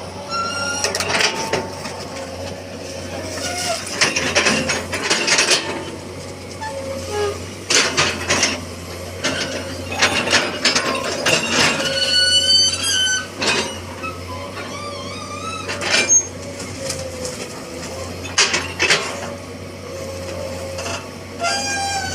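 Excavator at work loading pallet wood: a steady engine hum underneath, with repeated knocks and clattering of wood and several high, wavering squeals.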